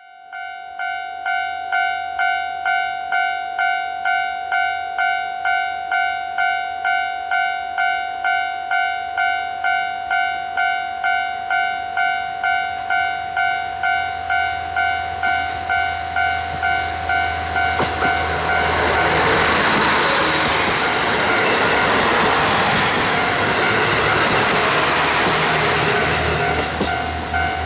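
Japanese level-crossing warning bell ringing in a steady pulse of about two strokes a second. From about 18 seconds in, a train passes with a loud rushing noise that swells and holds while the bell continues underneath.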